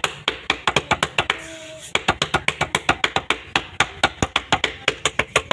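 Rapid palm slaps on thin jowar (sorghum) roti dough as it is patted out flat by hand on a floured slab, about eight sharp pats a second, with a short pause about a second and a half in.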